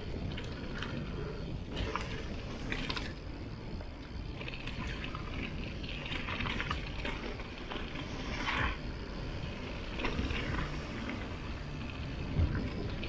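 Mountain bike rolling down a dirt trail: a steady rumble of tyres over the ground, with short rattles from the bike every second or two as it goes over bumps.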